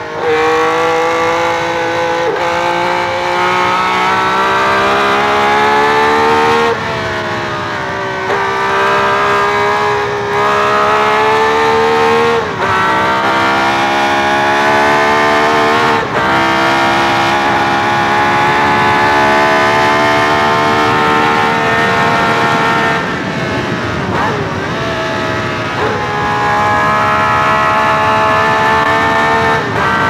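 Onboard recording of a Ferrari 3-litre V12 Formula One engine at racing speed. The revs climb steadily in each gear and fall sharply at every gear change. There is a brief lift off the throttle and a drop in level about three quarters of the way through.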